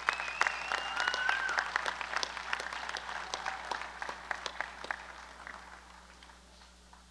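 Audience in a school gymnasium applauding, strongest at the start and fading out over about six seconds. A held high note sounds within the first second and a half.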